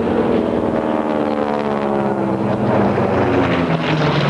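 Single-engine radial-engine propeller warbird flying past low. The engine and propeller drone falls steadily in pitch as the plane goes by.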